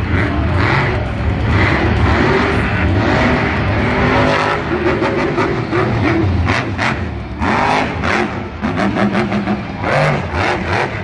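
Monster truck's supercharged V8 engine revving hard on the dirt course, with a series of quick throttle blips in the second half.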